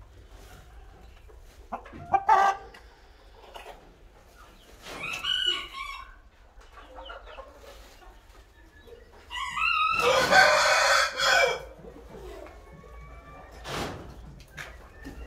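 Caged aseel chickens clucking on and off, with a rooster crowing loudly for about two seconds around ten seconds in.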